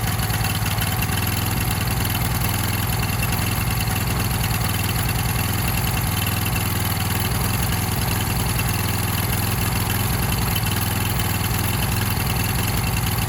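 Small portable generator engine running steadily on biogas (methane) instead of gasoline, warmed up and running smoothly at an even speed.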